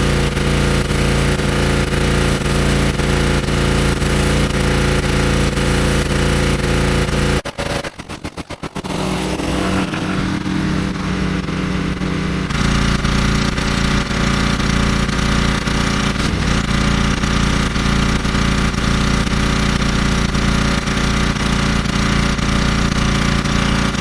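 Gas-engine pressure washer running steadily with its high-pressure water spray hissing. About seven seconds in the sound breaks up in rapid cuts for a second or so, then comes back with a changed tone for a few seconds before the full sound resumes.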